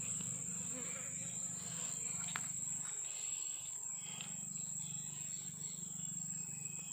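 Steady high-pitched insect drone, one unbroken held tone, over a faint low hum, with a single small click about two seconds in.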